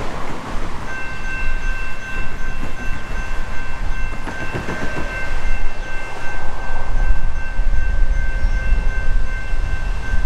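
Air horn of a Norfolk Southern GE AC44C6M diesel locomotive sounding one long, steady chord-like blast that begins about a second in, over the low rumble of the approaching train, which grows louder in the second half.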